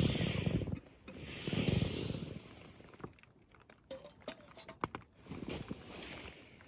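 Camping gear being handled: two loud rustles of fabric in the first two seconds, then softer rustling and a few small clicks.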